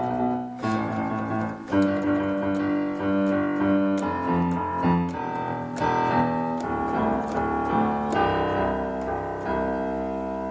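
Piano music with held notes and chords in the bass and middle register, played as a test of even bass reproduction: the notes should all come out at the same loudness. The sound slowly fades near the end.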